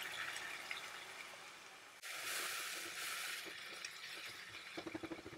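Masala frying in a nonstick kadhai, sizzling faintly. The sizzle breaks off abruptly about two seconds in and resumes, and near the end a spatula stirring the thick masala gives a few light clicks and scrapes.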